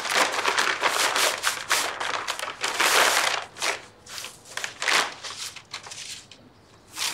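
A bag crinkling and rustling as a dress is taken out and unfolded. The sound comes in irregular rushes, dense for about the first four seconds, then sparser and fainter.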